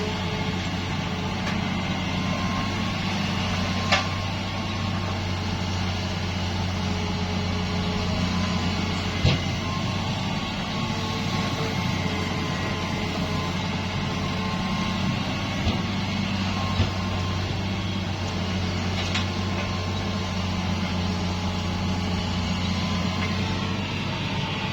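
Diesel engine of heavy earthmoving machinery running steadily with a low drone, with a few sharp knocks now and then.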